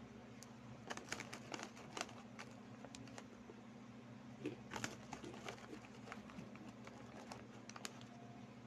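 Plastic snack bag crinkling as a hand reaches into it, and crispy snacks crunching as they are eaten. The crackles come in short clusters about a second in, around the middle, and near the end.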